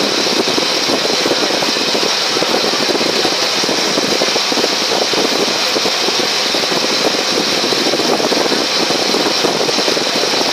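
Steady, loud running noise aboard a moving passenger ferry: the boat's engine drone mixed with wind buffeting the microphone.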